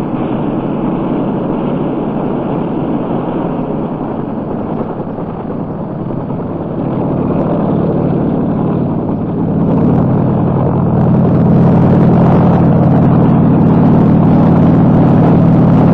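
Helicopter engine and rotors running steadily, growing louder about seven seconds in and again around ten seconds in.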